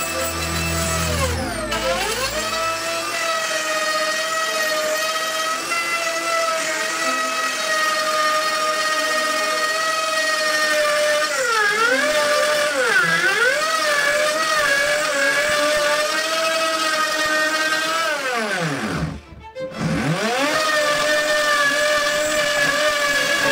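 Bosch POF 1400 ACE plunge router motor running with a steady high whine. Its pitch dips twice around the middle, and a few seconds before the end it briefly slows almost to a stop and speeds back up.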